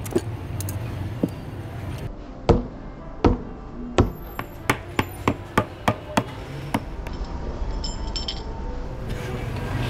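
Hammer tapping on the sole of a shoe held in the hand, as in a cobbler's repair: about a dozen sharp knocks, spaced out at first and then about three a second, stopping before seven seconds in.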